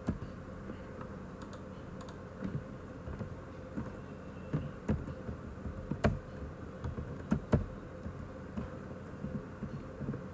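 Computer keyboard typing: scattered single keystrokes at irregular intervals, a few sharper clicks standing out, over a faint steady hum.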